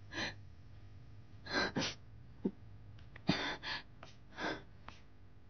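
A woman crying: a string of short, uneven gasping breaths and sobs.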